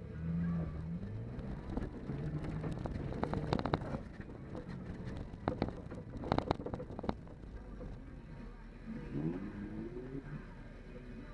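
A 4x4's engine running and revving as it is driven hard over rough quarry ground, heard inside the cabin. Clusters of sharp knocks and rattles from the body and suspension come as it crashes over bumps, about three seconds in and again about five to seven seconds in.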